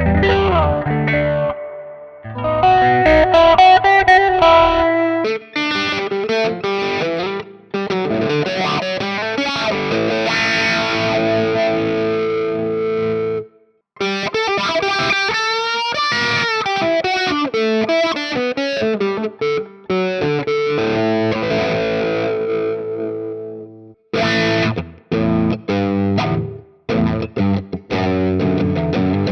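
Chibson Gold Top electric guitar playing a passage of chords and single-note lines with string bends, broken by brief pauses about fourteen and twenty-four seconds in.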